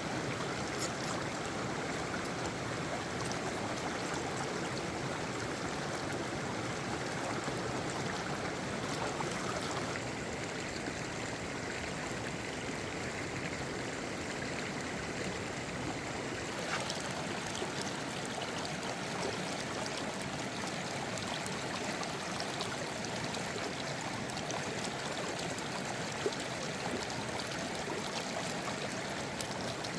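A stream flowing steadily, an even rushing of water, its tone shifting slightly twice.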